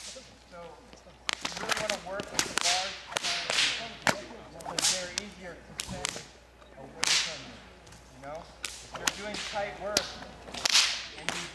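Whips cracking again and again, a dozen or more sharp cracks at irregular intervals, as pops and angled cracks are practised.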